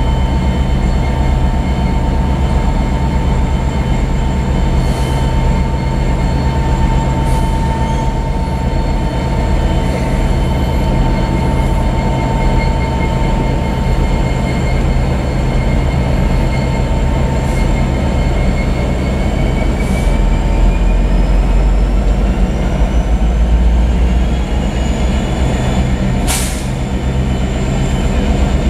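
Kansas City Southern diesel-electric locomotives passing slowly, their engines running with a loud, steady drone. In the second half a rising whine builds, and near the end there is a single sharp clank.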